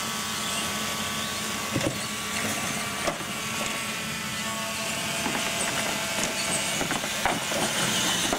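Radio-controlled monster trucks racing on concrete: electric motors and gears whining, rising and falling with the throttle. There are a few sharp knocks as the trucks hit and come off the ramps.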